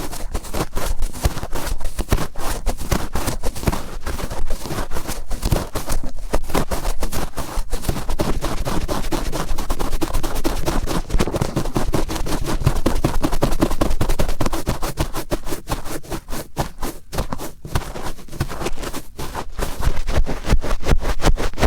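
Cotton swab scraped and twisted firmly in an ear right at the microphone: a loud, close, scratchy rustling made of rapid, uneven strokes.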